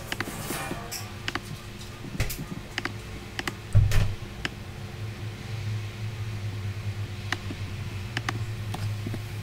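Scattered clicks of a computer mouse, irregular and about a dozen in all, with a dull low thump about four seconds in. A steady low hum comes in from about halfway through.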